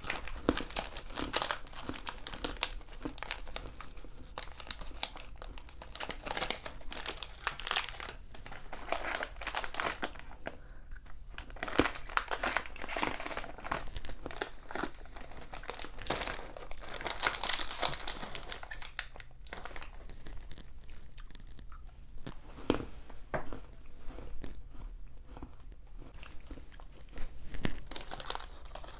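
Snack wrappers being crinkled and torn open by hand, dense crackling for about the first two thirds, heaviest past the middle, then sparser crackles and clicks toward the end.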